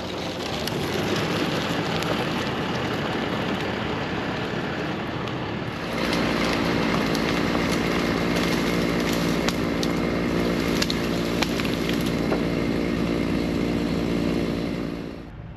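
An engine running steadily, growing louder about six seconds in and dying away shortly before the end.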